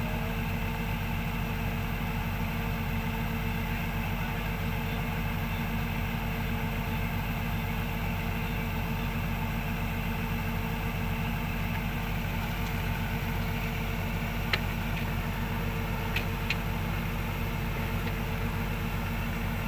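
Kubota DC105X combine harvester's diesel engine running at a steady speed while its unloading auger pours rice grain into a truck. A few short sharp clicks come late on.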